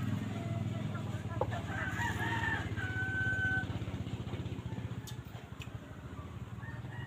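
A rooster crowing once, about two seconds in, ending on a long held note, over a steady low hum.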